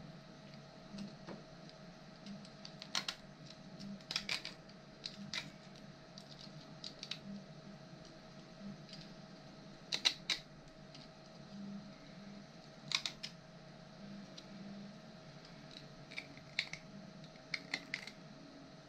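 Scattered light clicks and taps at irregular intervals, the loudest about ten seconds in, over a steady faint hum.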